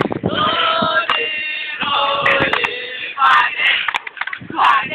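A group of young voices singing or chanting together in long held notes, breaking into shorter shouted or spoken bursts about three seconds in.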